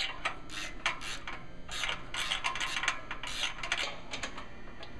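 Hand socket wrench working the exhaust nuts and mounting bolts on a motorcycle: irregular metallic clicks and rasping scrapes as the fasteners are loosened.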